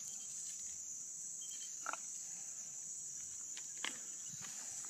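Field insects chirring in a steady, high-pitched chorus, with two short light clicks about two and four seconds in as the wire grill basket holding the fish is handled.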